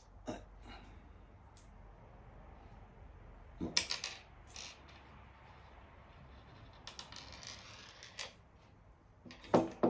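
Small magnets clicking and knocking as they are handled: a handful of separate sharp clicks, the loudest pair near the end.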